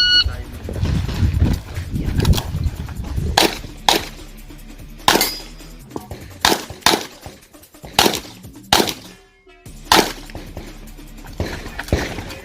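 Electronic shot-timer start beep, then a string of about nine handgun shots fired at uneven intervals, some in quick pairs about half a second apart, as a competitor shoots an IPSC stage.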